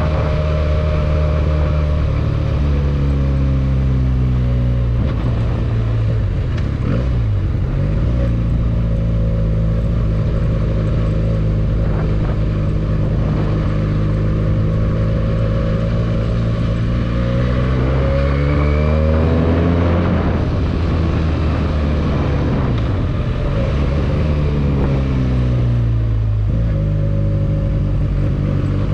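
Benelli 302S motorcycle's parallel-twin engine running under way. The revs drop a few seconds in, hold steady, climb in a rising pitch past the middle, then ease off again near the end.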